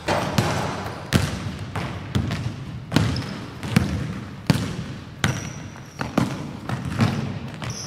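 Basketball being dribbled on a hardwood gym floor: about ten bounces, a little more than one a second, each echoing in the big hall.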